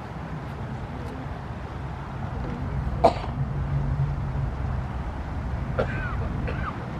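A single cough or throat-clear about three seconds in, the loudest sound here, over a steady low hum. A few short squeaky chirps come near the end.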